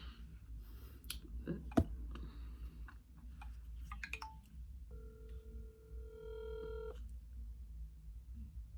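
A few short clicks and taps, then, about five seconds in, a single ringback tone lasting about two seconds as an outgoing phone call rings at the other end.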